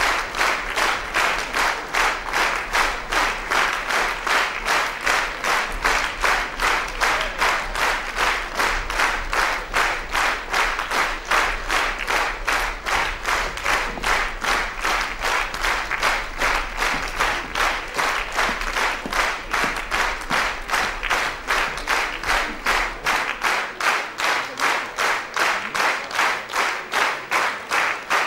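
Theatre audience clapping in unison: steady rhythmic applause of about two to three claps a second, keeping an even beat.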